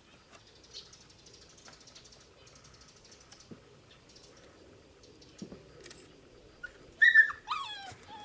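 A puppy yelping: a quick run of high yips, each falling in pitch, about seven seconds in. Before that there are only faint scattered clicks and rustling.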